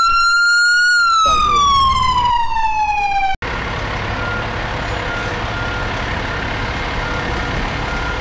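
An emergency vehicle's siren wails, rising briefly and then falling in pitch, and cuts off abruptly about three and a half seconds in. After that a fire engine runs at idle with a steady rumble, while a back-up alarm sounds short, evenly repeated beeps.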